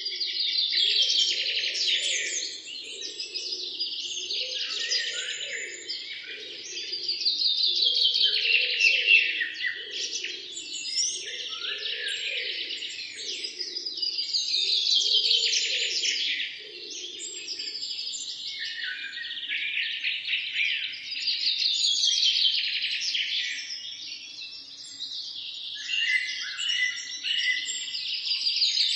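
Morning chorus of many small songbirds chirping and trilling over one another, swelling and easing in waves every few seconds. A lower, pulsing sound runs beneath them for the first half or so, then stops.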